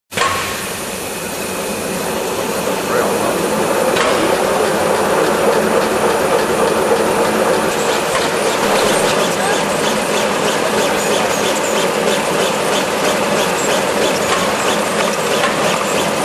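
Chocolate fold-wrapping machine (HRZD-W450) running with a steady mechanical clatter. From about halfway, a regular rapid clicking of its repeating wrapping cycle comes through.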